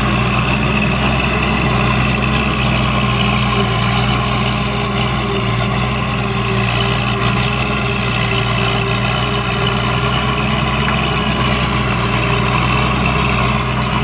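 Engine of a Kangro crawler tractor running at a steady, even speed while it works through a flooded rice paddy, a constant low drone.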